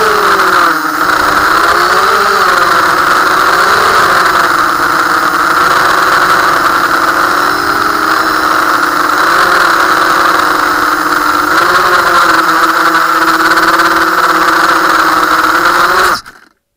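Racing quadcopter's Cobra 2206 2100 kV brushless motors and propellers whining steadily, their pitch swaying up and down with the throttle. The sound cuts off abruptly near the end.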